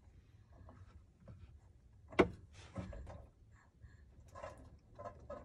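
A metal drink can set down on a wooden tabletop with one sharp knock about two seconds in, followed by soft rustling and light clicks of food being picked out of a bowl.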